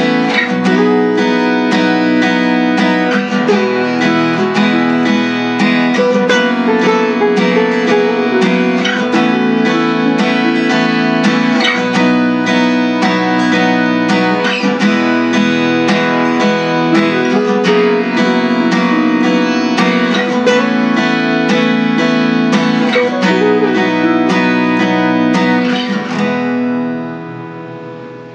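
Acoustic guitar music, strummed in a steady rhythm, fading out near the end.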